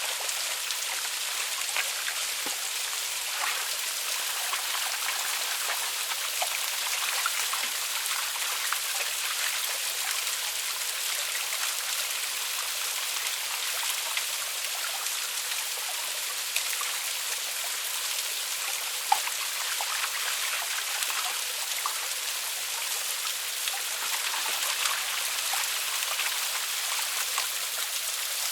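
Small waterfall and river water rushing steadily, with scattered drips and splashes.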